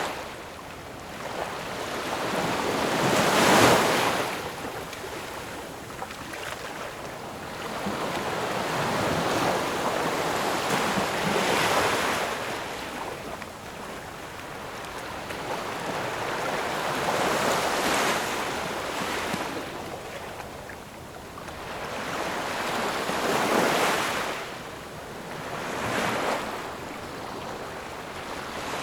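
Ocean waves breaking on the shore, each surge swelling and washing out, about one every six seconds, with a softer one just after the last.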